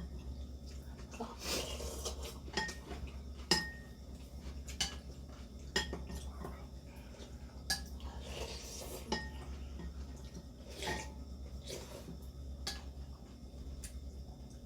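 Eating utensils clinking and tapping against bowls and dishes during a meal, in irregular single clicks, some ringing briefly.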